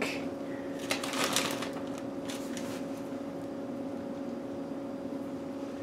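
A few brief soft rustles and clicks in the first couple of seconds as sliced red onion and minced garlic are pushed from a small glass bowl into a plastic zip-top bag, over a steady low electrical hum.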